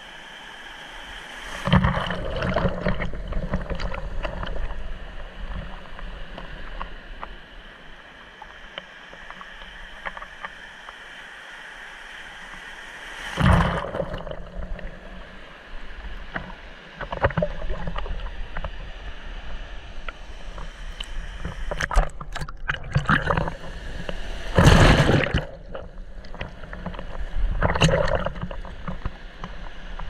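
Shallow sea surf washing around a camera held at the water's surface: a steady muffled sloshing and gurgling, with about five louder rushing surges as waves break over it, the loudest about 25 seconds in.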